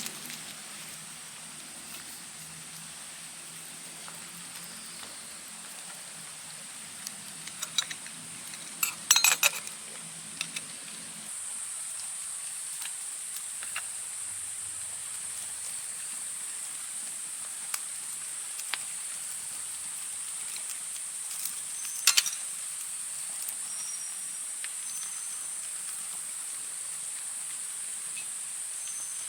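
Forest ambience: a steady high-pitched insect drone throughout, with a few scattered clicks and snaps. A low hum stops about a third of the way in, and the drone grows a little louder there. Several short high chirps come near the end.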